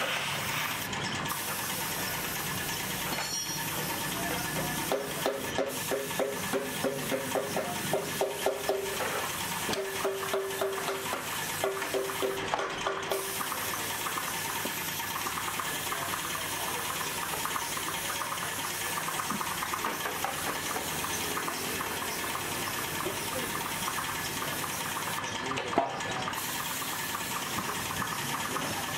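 Gravity-feed compressed-air paint spray gun hissing steadily while spraying paint. From about five seconds in until about thirteen, a pitched sound pulses over the hiss a little more than twice a second. One sharp click comes near the end.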